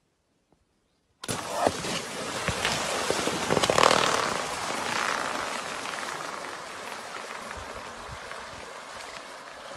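Water gushing out of a split inflatable above-ground pool onto a lawn. The rush starts suddenly about a second in, peaks around four seconds in, and then slowly eases off as the pool drains.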